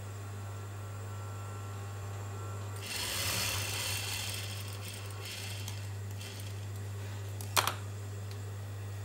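Juki industrial sewing machine running: its motor hums steadily, with a short run of stitching about three seconds in and a sharp click near the end.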